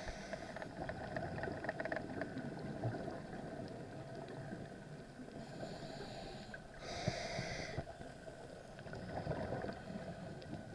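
Underwater ambience heard by a submerged camera: a steady muffled water rumble with scattered crackling clicks, and two hissing bursts about six and seven seconds in.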